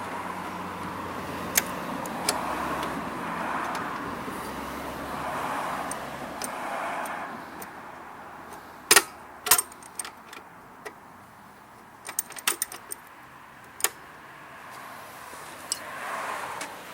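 Briggs & Stratton 190cc mower engine cranked over on its pull cord several times without catching, during a no-start after a carburettor cleaning. This is followed by scattered sharp metallic clinks and rattles.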